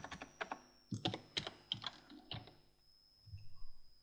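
Computer keyboard typing: short runs of keystrokes with brief pauses between them, as a word in code is deleted and retyped, thinning out to a few faint taps near the end.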